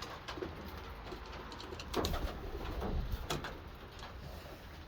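Racing homer pigeons cooing softly in their loft, with a few sharp clicks and scuffles among them.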